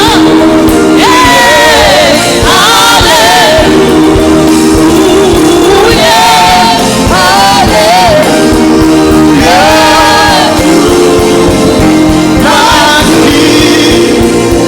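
Live gospel music from a church choir: a lead singer's ornamented, wavering vocal runs in short phrases over sustained held chords, loud and steady.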